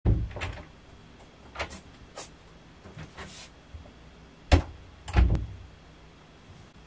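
A person moving about and stepping into place: scattered footsteps, knocks and clothing rustles, with the loudest thump about four and a half seconds in and another just after five seconds.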